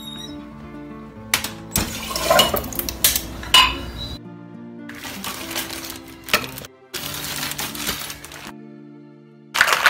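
Clinks and knocks of glass bottles and a metal cocktail shaker tin as drinks are poured for a cocktail, over background music.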